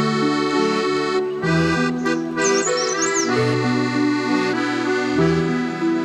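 Background music: held, organ-like chords and a slow melody whose notes change every half-second to a second.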